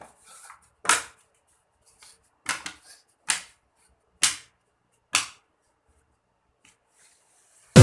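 A string of sharp, hard knocks, about six, spaced roughly a second apart with quiet between them.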